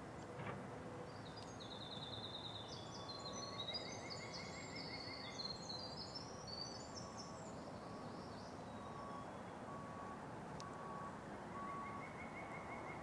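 Wind noise in the woods, with songbirds singing high, quick songs and trills over it. Through the middle a faint, even beep repeats about once a second.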